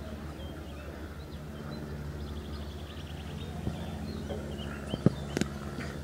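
Birds chirping outdoors, with a rapid trill in the middle, over a steady low hum. Near the end come a few sharp thuds close to the microphone: a football being kicked along the grass as a player dribbles past.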